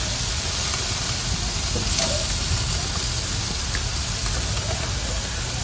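Marinated chicken sizzling on the hot grates of a gas grill, a steady hiss over a low rumble. About two seconds in, the hiss briefly gets louder as another piece goes down on the grill.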